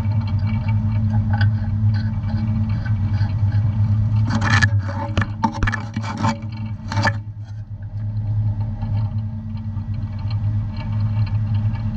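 Steady low drone of a scallop fishing vessel's engine, heard through the dredge-mounted camera. Partway through comes a few seconds of clattering knocks.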